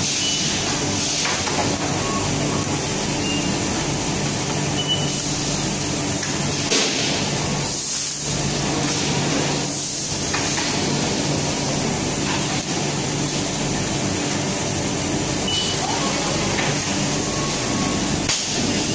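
Steady hum and hiss of factory machinery around a PCB solder mask exposure machine, with a constant low drone. A few short high electronic beeps and several sharp clunks come through it.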